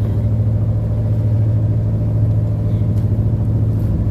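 A motor boat's engine running steadily under way, a low, even drone with a fast pulse, heard from inside the wheelhouse.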